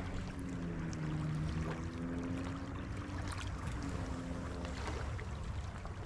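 Choppy water washing along the bank. Under it, a distant engine drones steadily and fades out about five seconds in.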